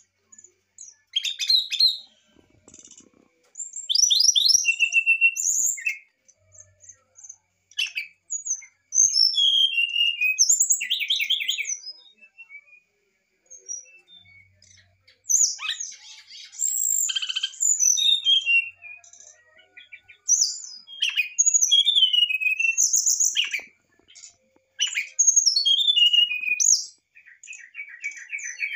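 Brown-chested jungle flycatcher singing in varied bouts of clear, high whistles, falling slurs and quick trills, each bout lasting a second or two with short pauses between.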